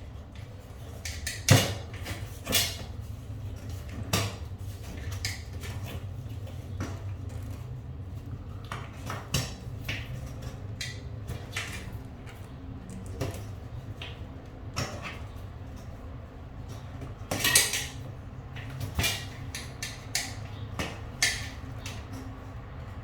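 Scattered metallic clinks and knocks of tools and parts being handled during a bicycle puncture repair, about a dozen over twenty seconds, over a low steady hum.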